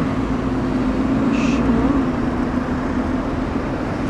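Steady city traffic noise with a low, even hum under it, and a short hiss about a second and a half in.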